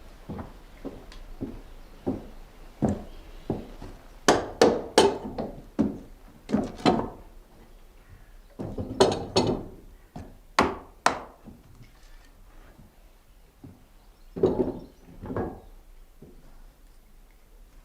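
Irregular heavy knocks of wood being struck, in clusters of two or three blows with pauses between, like timber being hammered or chopped by hand.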